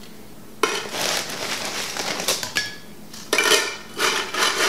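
Tortilla chips crackling and clattering as handfuls are dropped into a large empty tin can, with a faint metallic ring from the can. Two bouts: one starting about half a second in, another from past the three-second mark.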